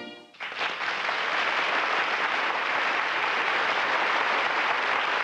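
Audience applauding steadily, starting about half a second in, just after a brass music cue dies away.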